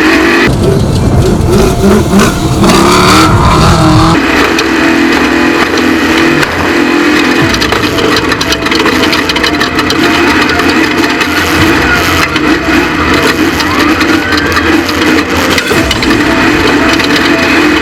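Off-road race truck engine running hard at fairly steady revs, with constant rattling and crunching from driving over rough ground. A heavier low rumble runs through the first few seconds.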